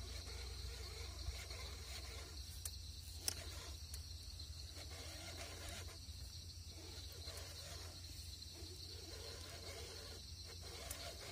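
Faint, steady chorus of night insects, an even high trill, over a low hum.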